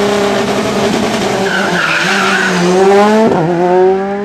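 Rally car pulling away from the stage start. The engine is held at steady high revs while the tyres spin and squeal, then the revs climb, drop with an upshift a little over three seconds in, and climb again.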